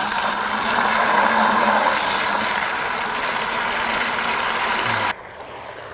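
Water from a garden hose pouring into a plastic 5-gallon bucket: a steady rushing splash. About five seconds in it drops suddenly to a much fainter rush.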